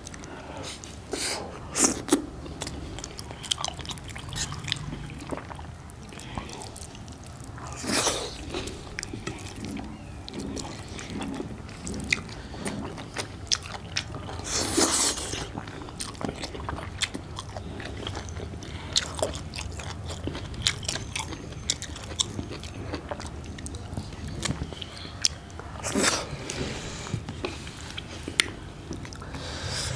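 Chewing and mouth sounds of two people eating wheat dhido, curry, greens and fried chicken, with many small sharp clicks and a few louder smacks.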